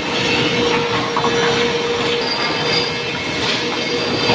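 Fuvico GT-635ARD two-sided planer with spiral cutterheads running and planing boards as they are fed in: a loud, steady machine noise with a constant whine.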